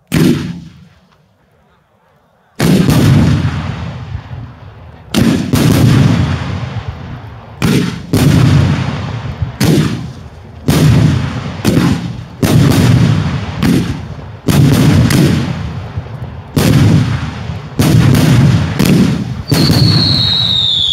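Daylight fireworks display: aerial shells bursting in loud bangs, about one every second, each trailing off in a rumbling echo, after a single opening bang and a short pause. A high whistle, falling slightly in pitch, joins near the end.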